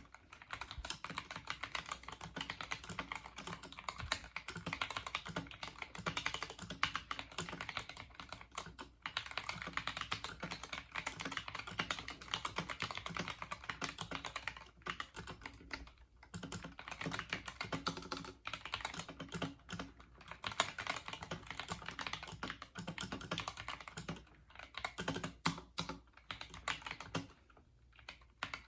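Continuous fast typing on a GK61 mechanical keyboard with Gateron Optical Red linear switches lubed with Krytox 205g0 and a foamed case. The keystrokes run as a dense stream of clacks broken by a few short pauses.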